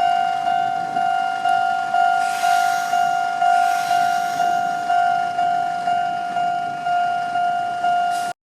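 Japanese level crossing alarm at a Nishi-Nippon Railroad (Nishitetsu) crossing, ringing a single-pitched bell tone about twice a second, each strike sharp and then fading. A hiss of noise rises under it a couple of seconds in and dies away.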